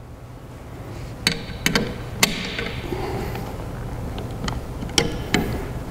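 Sharp metallic clicks and taps as a stainless steel gas strut's end is pushed and snapped onto the ball stud of a billet aluminum hood hinge: three clicks in the first half, then a couple more near the end.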